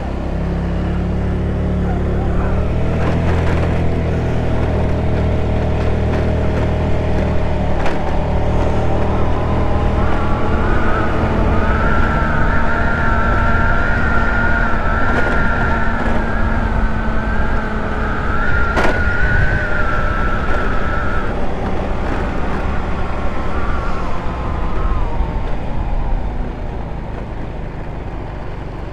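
GY6 150cc scooter's single-cylinder four-stroke engine under way, pitch climbing as it pulls away, then holding steady. A high whine rides over it through the middle, and the engine eases off with falling pitch near the end.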